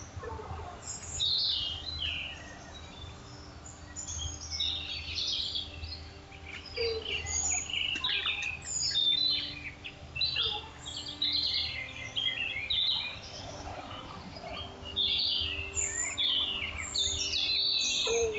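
Several wild birds singing and calling at once: quick, overlapping high chirps and trills that go on without a break, over a faint low rumble.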